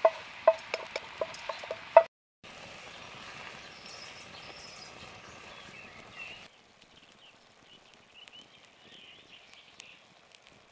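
A spoon tapping against an enamelled metal bowl about four times a second, each tap ringing, as the last of the bowl's contents is knocked out. After a brief break comes a low steady hiss with faint bird chirps.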